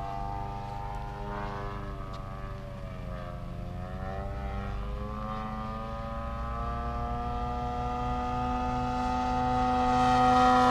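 Engine and propeller of a large radio-controlled Extra 330SC aerobatic model plane flying a low knife-edge pass. Its tone dips in pitch a few seconds in, then rises again, and grows steadily louder over the last few seconds as the plane closes in.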